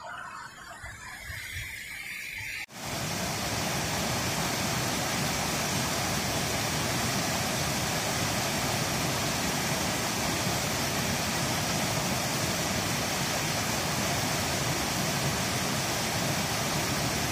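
Steady, loud rushing of water, a close-by mountain river or falls, that starts abruptly about three seconds in after a quieter stretch.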